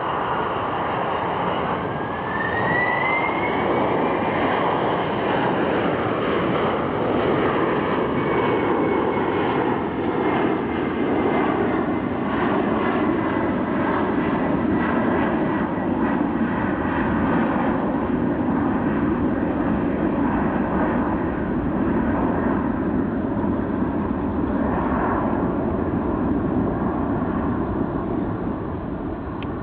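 Boeing 747-400's four jet engines, a loud steady jet roar as the airliner climbs away at low altitude. A whine rises two to four seconds in, then slowly sinks while the roar deepens, and the sound fades a little near the end.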